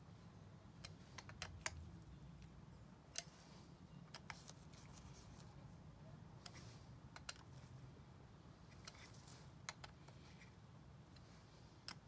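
Faint, irregular clicks and ticks of a hand screwdriver turning greased screws into the cylinder assembly of a Central Pneumatic oilless air compressor pump, over a low steady hum.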